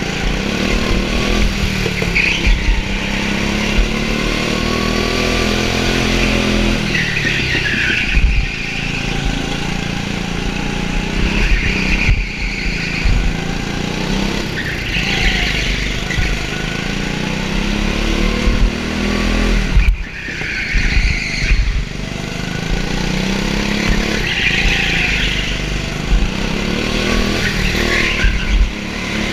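Go-kart engine heard from the driver's helmet, revving up along the straights and dropping off into the corners, over and over every few seconds.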